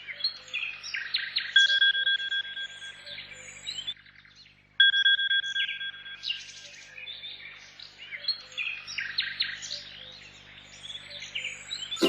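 Songbirds chirping and trilling, several calls overlapping, with a brief quiet gap about four seconds in.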